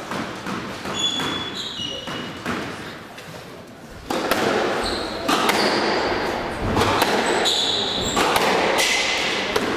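Squash rally: the ball struck by rackets and smacking off the court walls again and again, with quick footwork and short high shoe squeaks on the wooden floor, busiest in the second half.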